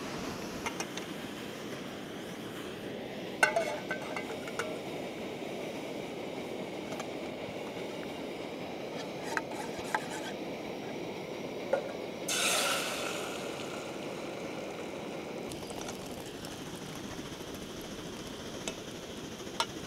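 Camp cookware being handled: a metal spork stirring and scraping in an aluminium camp pot, with sharp clinks as pots and utensils knock together or are set down. A brief rush of noise a little past the middle, over a steady background noise.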